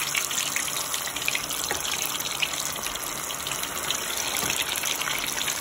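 Battered chicken wings frying in hot oil: a steady sizzle with scattered crackling pops.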